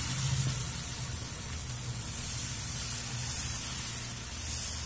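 Ragi dosa batter sizzling steadily on a hot cast-iron dosa griddle as it is poured and spread.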